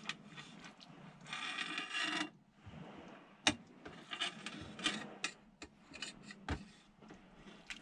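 A wooden spoon scraping and knocking against the metal inner pot of an electric pressure cooker as stew is dished out: one long scrape about a second in, then a string of sharp clacks.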